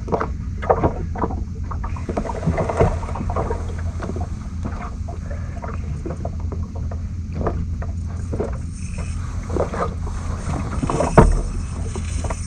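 Aboard a small boat at sea: a steady low rumble with irregular knocks and clicks, and one loud knock about eleven seconds in.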